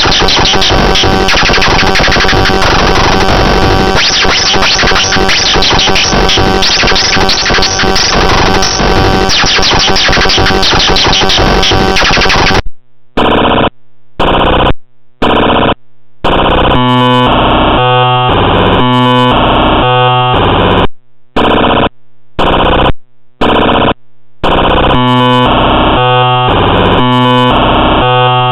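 Very loud harsh synthetic computer audio from a joke malware program: a dense glitchy buzzing noise that switches about halfway through to choppy stepped tones cut by short silences.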